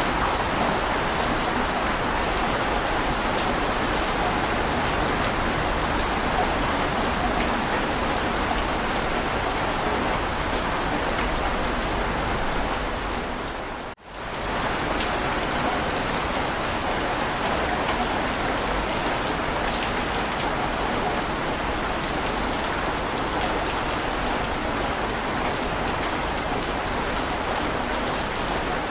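Heavy rain falling steadily: a dense, even hiss with scattered drop ticks. About halfway through it fades briefly to almost nothing and swells straight back.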